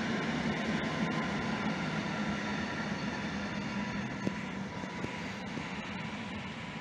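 EN57AL electric multiple unit drawing away from the station. Its running noise, a steady low hum with a faint higher whine, fades slowly as the train recedes.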